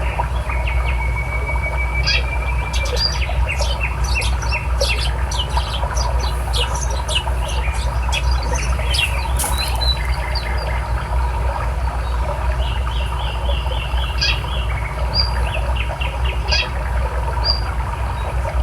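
Small birds chirping and calling in many short notes, with a held whistle near the start and a quick run of repeated notes about two thirds of the way through, over the steady rush of a river.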